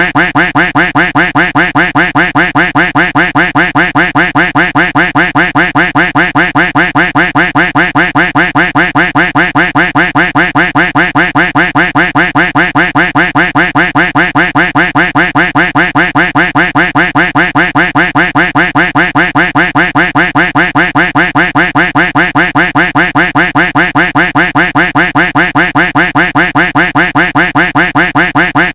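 A duck quack sound effect looped over and over, one identical quack after another at an even pace of several a second.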